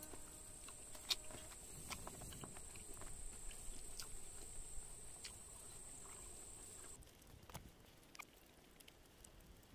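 Quiet eating by hand: fingers mixing cooked rice on a banana leaf, with scattered light clicks, then biting into chicken near the end. A steady high-pitched whine runs underneath and stops about seven seconds in.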